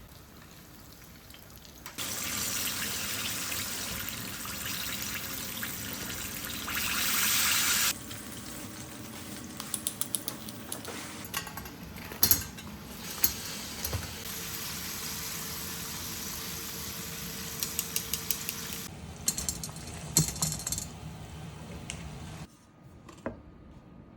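Battered chicken deep-frying in hot oil: a steady sizzle with scattered crackles and pops. It comes in a few cut-together stretches and is loudest for a moment shortly before the first cut, then drops away near the end.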